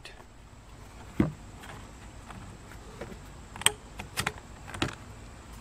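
A few short clicks and knocks, about four in all, from a kayak cart's bunker bars being handled and pushed into the cart's frame tubes. The first, about a second in, is the loudest.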